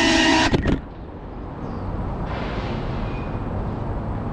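GEPRC CineLog35 FPV drone's motors and propellers whining, then cutting off about half a second in with a few sharp knocks as the drone comes down on the ground. After that, only steady low outdoor background noise.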